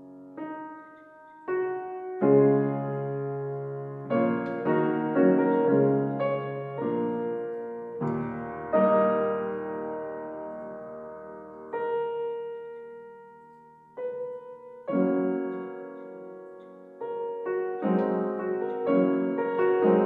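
Solo piano music: a slow piece of chords and single notes, each struck and left to ring and fade, with brief lulls between phrases.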